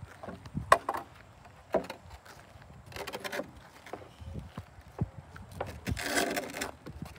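A painted wooden ramp board being lifted and shifted against a trailer deck: a few sharp wooden knocks, the loudest under a second in, and scraping about three seconds in and again near the end.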